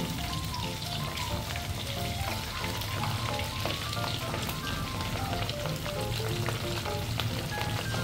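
Pork meatballs deep-frying in hot oil in a steel wok, a steady sizzle, with a simple melody of background music over it.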